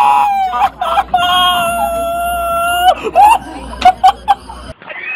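Large bird calling loudly: one long call held at a level pitch for nearly two seconds, followed by a few short calls and clicks. The sound cuts off abruptly near the end.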